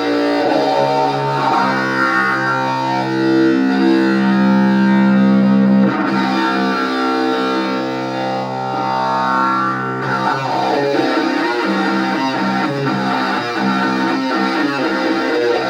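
Distorted electric guitar, a Les Paul Custom-style guitar through an Orange amplifier, playing slow doom riffs. Long held chords ring for about the first ten seconds, then a busier, choppier riff follows.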